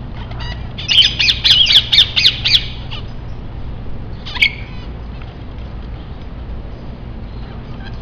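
A parrot squawking: a quick run of about seven loud, harsh calls in under two seconds, starting about a second in, then one more call a couple of seconds later.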